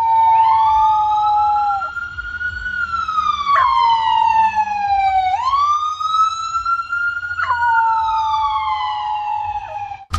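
Emergency vehicle siren wailing, its pitch rising and falling slowly about every five seconds. A puppy howls along with it for the first two seconds.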